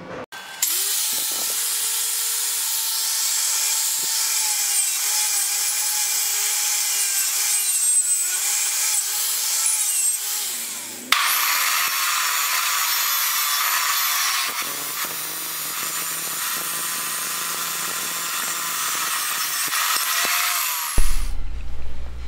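Abrasive chop saw's cut-off wheel grinding through thin-walled steel rectangular tube: a steady, harsh hiss over a wavering motor whine. It sags and breaks off about eleven seconds in, then starts again sharply for a second cut, and stops about a second before the end, leaving a low hum.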